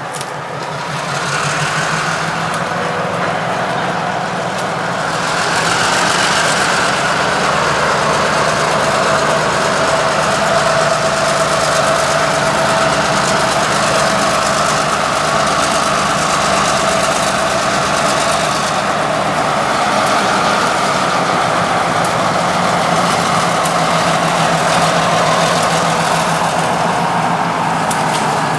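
Diesel locomotive engine running steadily as the train creeps toward the listener, getting louder about a second in and again about five seconds in.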